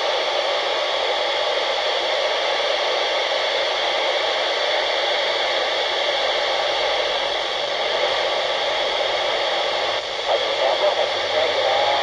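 Steady FM static hiss from a handheld amateur radio transceiver's speaker tuned to 29.6 MHz, the noise heard between transmissions on the 10-metre band. About ten seconds in, a weak voice starts to come through the hiss.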